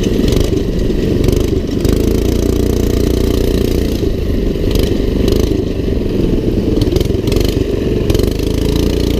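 Small single-cylinder go-kart engine running hard at fairly steady revs, with some rattling.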